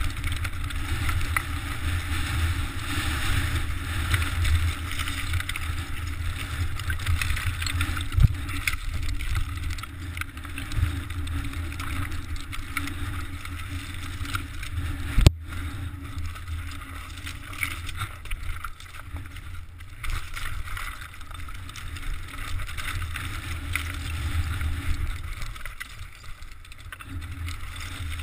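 Mountain bike rolling down a rough, loose slate trail: a steady low rumble of wind on the GoPro's microphone over the rattle and chatter of the bike on the rocks. A sharp click about halfway through.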